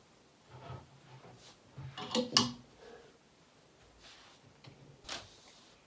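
Clothes hangers clacking and knocking against a wardrobe rail as garments are handled, a few separate sharp clicks with the loudest pair about two seconds in and another near the end.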